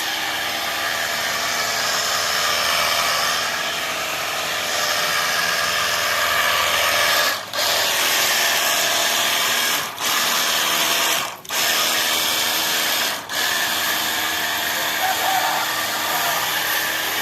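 Portable Ecosen jet cleaner running: its electric pump motor whines steadily under the hiss of the water spray. The sound breaks off briefly four times and starts again.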